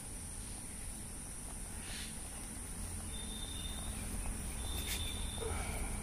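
Steady high-pitched insect drone, like crickets, with two thin, steady high whistles in the second half and a light rustle near the end.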